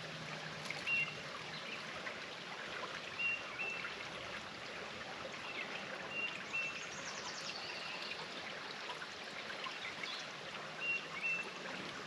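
Shallow grassy stream trickling and flowing steadily. Over it, a bird repeats a short high two-note call every few seconds, and a falling trill sounds about halfway through.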